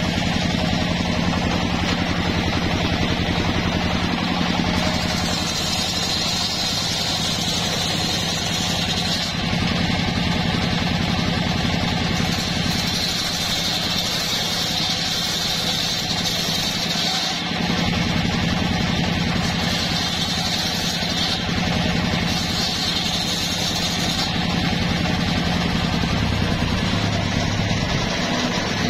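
Large table-mounted circular saw running steadily and ripping lengthwise through a trembesi (rain tree) timber beam, a higher cutting hiss coming and going over the steady motor hum as the wood is pushed through in several passes.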